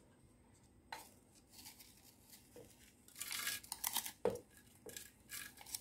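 Frozen pomegranate seeds sliding out of a glass bowl and dropping into a plastic blender jar: soft rustling spells broken by a few sharp clicks and knocks, the loudest a little after four seconds.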